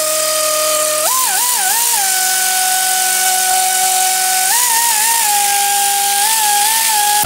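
Air ratchet running free: a steady motor whine over hissing exhaust air, its pitch shifting and wavering about a second in, again about halfway through and near the end as the trigger is feathered.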